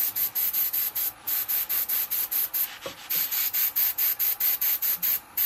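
Wood lathe turning slowly while a hand-held applicator rubs stain onto the spinning wooden lid, giving a rhythmic scratchy rubbing about five times a second, once per revolution. The rubbing breaks off briefly about a second in and again near the end.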